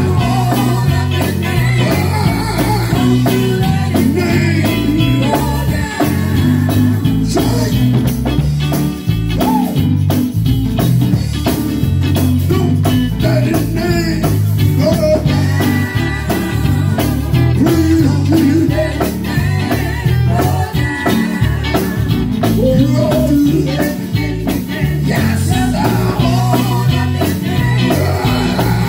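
Live gospel singing: a man's lead vocal with women's backing vocals over an amplified band with a heavy bass and a steady beat, a tambourine shaken along.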